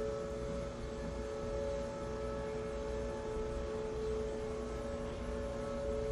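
Mini Fedelcode Model 7 tornado siren sounding a steady tone, two close notes held at an even pitch without rising or falling, over a low rumble.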